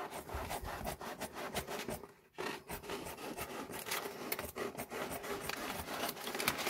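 Scissors cutting through a sheet of plastic bags ironed together in several layers, in a quick run of short snips, with a brief pause about two seconds in.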